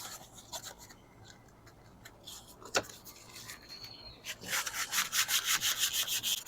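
Sandpaper rubbing on a hardwood dowel: a few scattered strokes with a sharp knock about three seconds in, then from about four seconds a fast, regular back-and-forth sanding, about five strokes a second.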